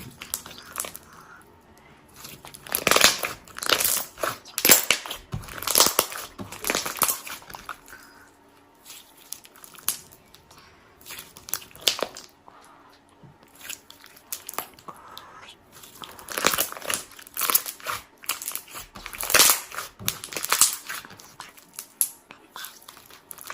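Close crisp crunching and crinkling noises in several bursts a few seconds long, with quieter pauses between them.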